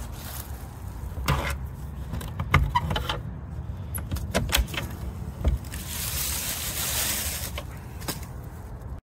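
Clicks and knocks of a metal latch being worked on a crawl-space access door, then a longer scraping as the OSB access panel is pulled out of its opening. The audio cuts off suddenly near the end.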